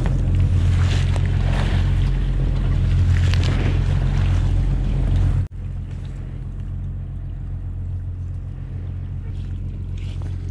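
Fishing boat's engine running with a steady low drone, with splashing water and net handling close by for about the first five seconds. Then, after an abrupt cut, the drone goes on quieter and alone.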